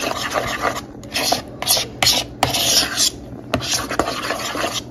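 A utensil stirring and scraping thick mayonnaise-based sauce around a bowl in a run of rasping strokes, with a few sharp clicks where it knocks the side of the bowl.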